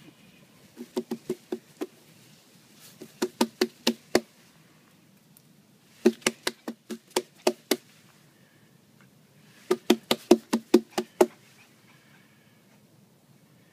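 Sharp knocks on a hard surface, coming in four quick bursts of about five to seven knocks each, a little over a second per burst.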